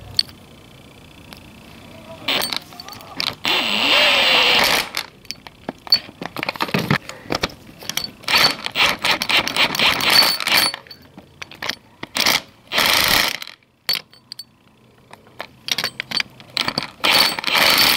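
Small metal parts of a steering shaft coupler clinking and rattling as it is handled and its bolts and nuts are fitted back on by hand, in irregular bursts of clicks and rustling.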